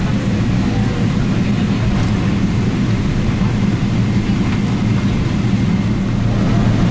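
Cabin noise of a Boeing 777 taxiing: a steady low engine drone with a strong hum.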